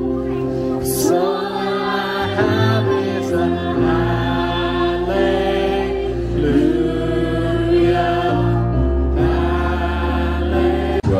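Background music: a song with sung vocals over steady held bass notes.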